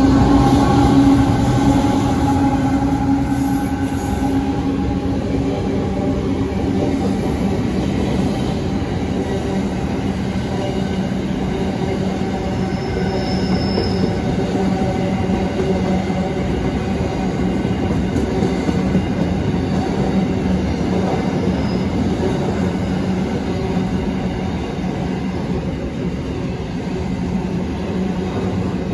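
A train running past on the rails, a steady loud rumble with faint wheel-squeal tones over it. It is loudest at the start, and a brief high squeal comes about halfway through.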